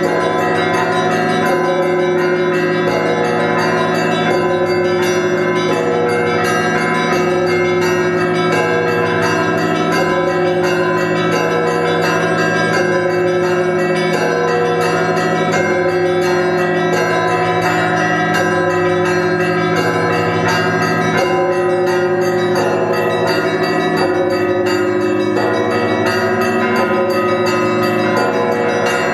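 Russian Orthodox monastery church bells ringing a continuous peal (zvon): many bells sounding together in a repeating rhythm, with the big bells humming steadily underneath.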